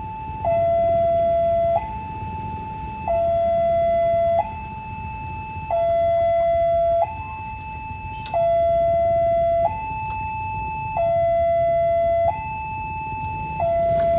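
Railway level-crossing warning alarm sounding its electronic two-tone signal, which warns that a train is approaching and the barrier is closing. It alternates between a lower and a higher tone, each held about a second and a quarter, and the lower tone is louder.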